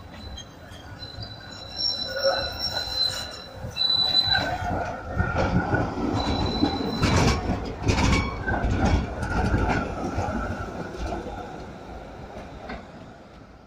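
Schindler Be 4/6 S tram passing close on curved track, its steel wheels squealing high on the curve. Loud clacks come around the middle as the wheels cross the junction's tracks, and the sound fades as the tram moves away.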